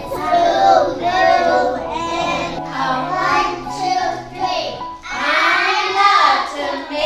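Young children singing together.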